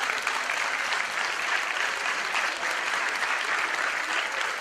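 Audience applauding, a steady dense clapping that builds just before and fades slowly after.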